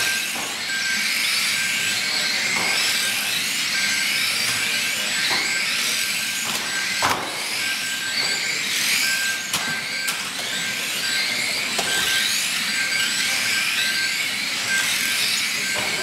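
Electric motors of a pack of 1/12th-scale radio-controlled stock cars whining together, each rising and falling in pitch as the cars accelerate and slow round a carpet oval. A few sharp knocks, and short beeps at one pitch repeating now and then.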